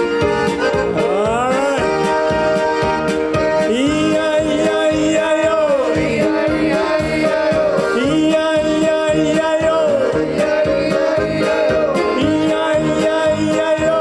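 Live polka band: accordion and keyboards over a steady oom-pah beat, with a voice singing long gliding notes.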